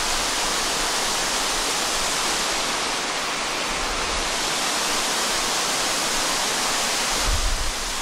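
Waterfall crashing onto rocks: a loud, steady rush of falling water, with a brief low rumble near the end.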